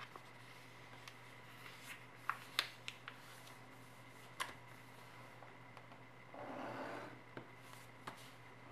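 A sheet of 80 g/m² A4 office paper being folded and creased by hand: a few short, sharp crinkles and taps, then a longer rustle of paper handling about two-thirds of the way through. A faint steady hum runs underneath.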